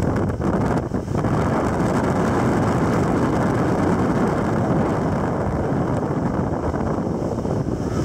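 Motorboat running at speed, a steady loud rush of engine and churned wake water, with wind buffeting the microphone.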